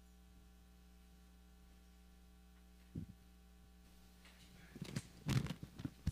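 Steady low electrical hum, with a short knock about three seconds in and a cluster of knocks and rustles in the last two seconds.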